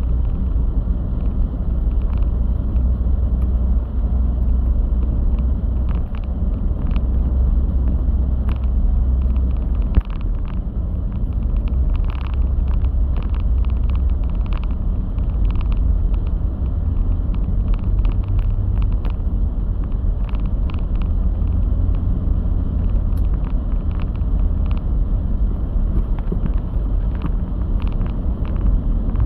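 Steady low rumble with many short, faint clicks scattered through it.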